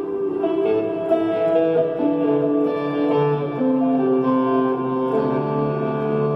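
Telecaster electric guitar playing a slow melodic passage, its notes held so that each rings on into the next.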